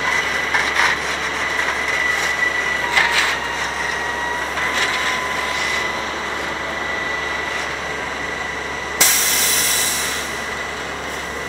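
Grapple crane on a bulk trash truck running as the boom swings: a steady mechanical whir with a thin, steady high whine. A sudden loud hiss breaks in about nine seconds in and fades over a second or so.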